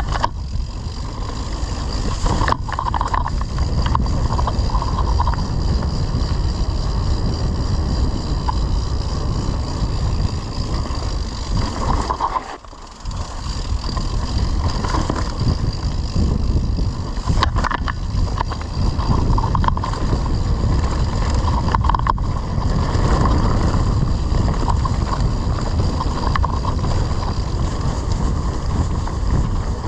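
Wind buffeting the microphone of a camera riding along on a mountain bike: a steady heavy rush with a few sharp knocks, dropping away briefly about halfway through.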